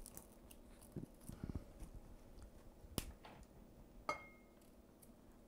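Quiet, crisp snaps and clicks of fresh broccoli florets being broken off the stalks by hand. A cluster of small snaps comes about a second in, the sharpest click about three seconds in, and a short ringing clink just after four seconds.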